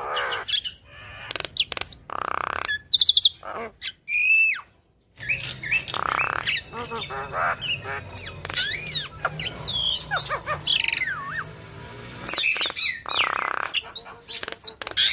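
Javan myna (jalak kebo) chattering a varied song: clear whistles and rising and falling glides mixed with harsh, rasping squawks, with a brief pause about five seconds in.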